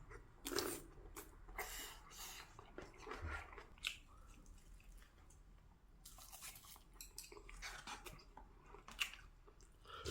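A person chewing food close to the microphone: irregular short wet mouth sounds and bites, some louder than others.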